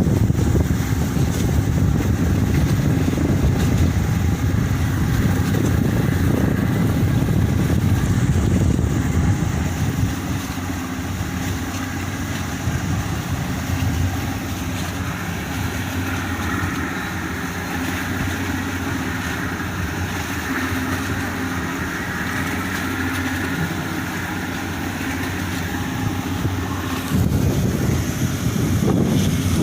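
Strong wind buffeting the microphone over the steady low drone of a ferry's engine running. The wind eases about ten seconds in, leaving the engine hum plainer, and gusts back in near the end.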